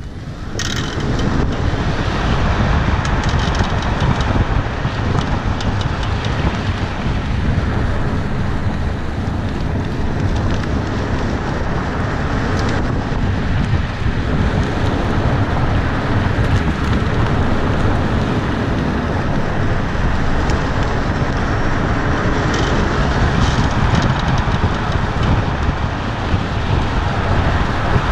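Steady road and wind noise from a moving 2014 Tesla Model S, with a few sharp clicks scattered through it: the clicking/creaking noise the owner has noticed on acceleration and as regenerative braking first comes on.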